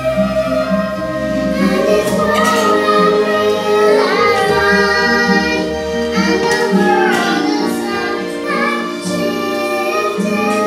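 A girl and a woman, with young children, singing a song together into a microphone through a sound system, over a steady low musical accompaniment.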